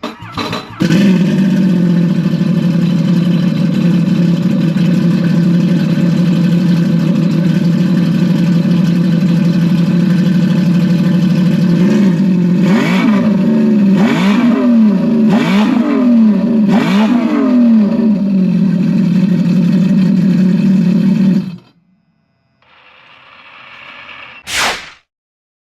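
Sea-Doo Spark's Rotax 900 ACE three-cylinder engine, fitted with a TDR aftermarket water box, catching about a second in and idling steadily with a deep exhaust note. It is revved four times in quick succession, pitch rising and falling each time, then shut off. A short whoosh follows near the end.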